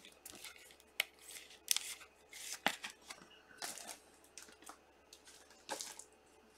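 Trading card being handled in clear plastic sleeves and a rigid plastic holder: short crinkling rustles of plastic with a few sharp clicks.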